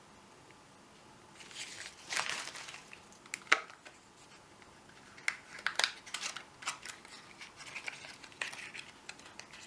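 Packaging and a small cardboard padlock box being handled and opened by hand: rustling and crinkling, then several sharp clicks and taps.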